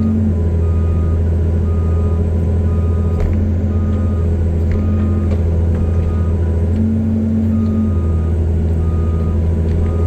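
CAT 320C excavator's diesel engine running steadily under load, with its travel alarm giving a short high beep about once a second.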